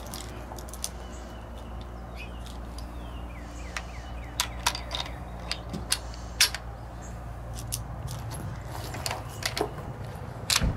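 Scattered sharp metallic clicks and clacks as 7.92×57mm Mauser cartridges are pressed one at a time down into the internal magazine of a Karabiner 98k rifle through its open bolt, over a steady low background hum.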